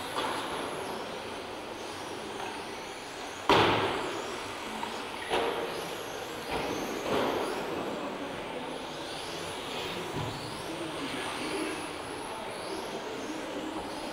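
Electric 1:10 RC touring cars with 17.5-turn brushless motors racing round a track in a sports hall: a steady hum of motors and tyres, with faint whines rising and falling as the cars speed up and brake. A sharp, loud knock about three and a half seconds in, and a few lighter knocks over the next few seconds.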